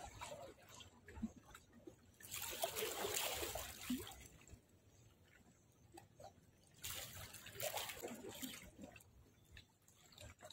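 Small waves of seawater sloshing and lapping at the shore's edge, in two faint swells of about two seconds each, one about two seconds in and one about seven seconds in.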